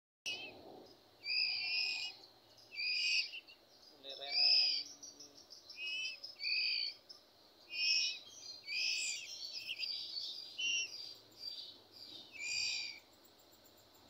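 Songbird nestlings begging to be hand-fed: short, harsh, high-pitched calls repeated about every one and a half seconds, around nine in all.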